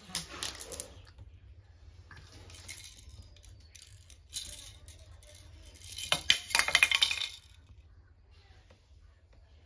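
Plastic baby rattle toys shaken and clattering in several short bursts, the loudest and longest burst about six seconds in.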